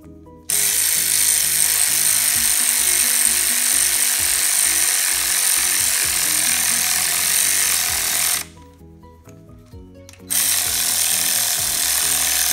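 Pneumatic air ratchet running in two long, steady bursts, the second starting about ten seconds in, as it drives a nut to thread a new exhaust-manifold stud down into the cylinder head.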